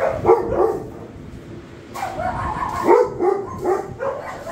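Puppies barking in short high calls: a few near the start, then a quick run of them from about two seconds in.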